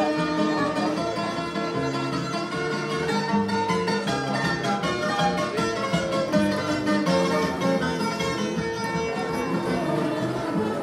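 Instrumental music of plucked guitars playing a flowing melody over bass notes, in the style of Portuguese fado guitar.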